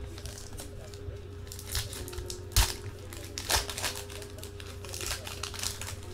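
Plastic packaging crinkling and crackling as trading cards are handled and unwrapped, a run of short crackles with a few sharper ones in the middle. Faint background music underneath.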